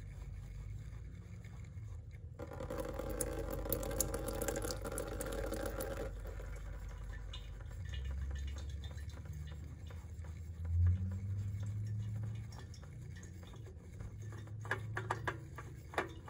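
Engine oil running and dripping into an open drain pan while the oil filter is unscrewed by hand, with a louder spell of running oil for a few seconds starting about two and a half seconds in. A few light clicks near the end.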